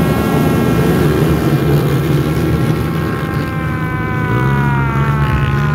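A pack of motocross bikes accelerating hard off the start line together, many engines at full throttle at once. In the second half the combined engine note slides slowly down in pitch.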